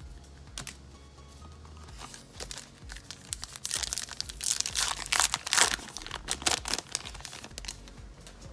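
Plastic-foil wrapper of a baseball card pack being torn open and crinkled by hand. The crackling builds about three seconds in and is loudest around the middle.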